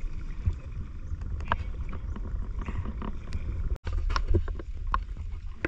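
Wind and water noise on a small fishing boat at sea: a steady low rumble with scattered light knocks and clatters. The sound drops out completely for a moment a little past the middle.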